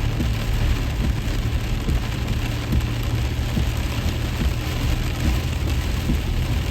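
Pouring rain falling on a truck, many fine drop hits in a steady hiss, over a steady low rumble of the truck's engine and road noise.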